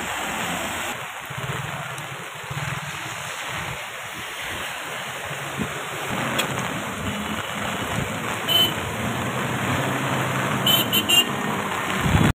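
Rain and rushing water on a flooded street, with motorcycle and car engines passing through the water. A few short horn beeps sound near the end.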